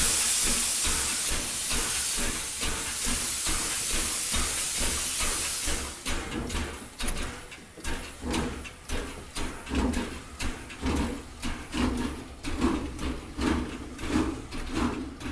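Steam locomotive: a loud, steady hiss of escaping steam for about the first six seconds, then a rhythmic beat of exhaust chuffs, about two a second, as it works along.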